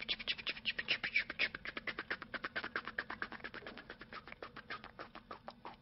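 Helicopter rotor chopping sound: a fast, even run of sharp clicks that gradually slows and fades, like rotor blades winding down.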